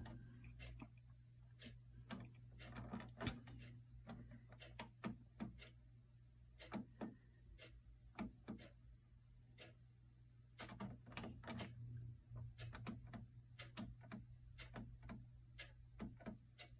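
Plastic buttons on an HP printer's control panel clicking as the setup menu is stepped through, in irregular single clicks and quick runs of several, over a steady low hum.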